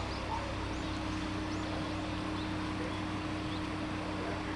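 Steady outdoor background: an even hiss over a constant low hum, with a few short, high bird chirps scattered through.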